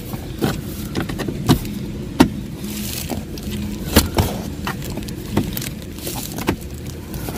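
Irregular clicks and knocks of hard plastic as a hand presses and taps the Ram truck's plastic footwell trim cover, which has just been put back over the wiring cubby. A steady low hum runs underneath.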